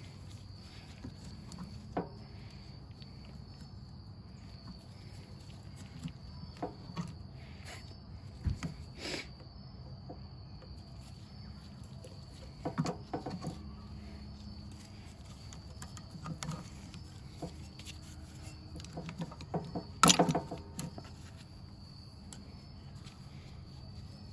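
Scattered clicks, taps and knocks of hand tools and small metal parts being handled while a small-engine carburetor is taken apart to get at its diaphragm. The loudest clatter comes about twenty seconds in, over a steady high-pitched background tone.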